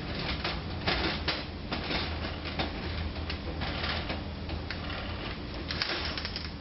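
Can opener working around the lid of a tin can, a run of irregular clicks about two to three a second.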